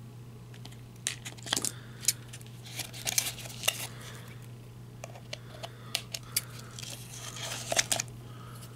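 Westcott non-stick scissors snipping twist ties on a cardboard packaging tray, with the cardboard handled and rustling: a run of irregular sharp snips and clicks.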